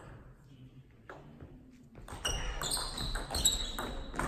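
Table tennis rally: the ball clicking sharply off bats and table, a few light taps at first, then a quick run of hits from about two seconds in, with short high squeaks of players' shoes on the sports-hall floor.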